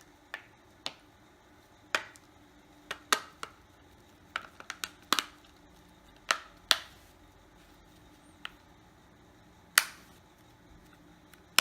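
Asus Zenfone AR back cover being pressed onto the phone, its clips snapping into place as a series of sharp, irregular clicks, a few of them louder, about a second to a second and a half apart at first and then more spread out.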